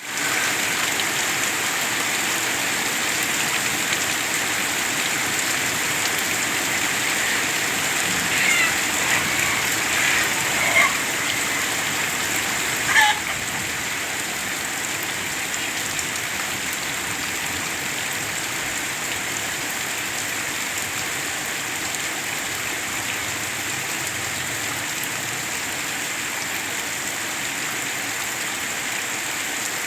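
Steady rain falling as a dense hiss. A few short high-pitched cries come between about 8 and 11 seconds in, and a sharp knock follows at about 13 seconds. After the knock the rain carries on a little quieter.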